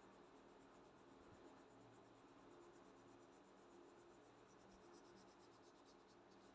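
Faint scratching of a red crayon coloured back and forth on paper in quick repeated strokes, more distinct in the second half, over a low steady hum.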